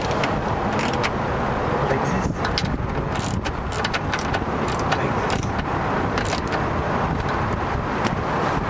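Steady background rumble with scattered light clicks and rattles as hands handle a plastic wiring-harness connector at a car's power window motor.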